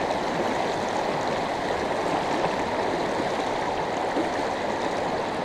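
River current rushing steadily: an even, unbroken wash of flowing water.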